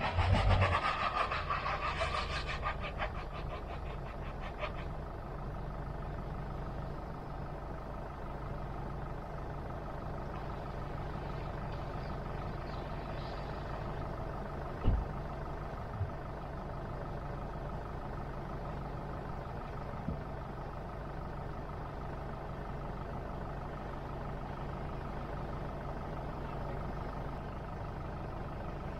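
Vehicle engine idling steadily, with a louder burst of sound in the first couple of seconds. A single sharp thump comes about halfway through.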